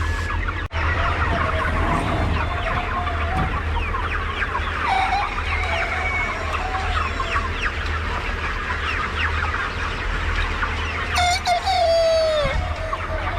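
A large flock of chickens clucking and chirping together over a steady low hum. Near the end a rooster crows once, in one longer falling call.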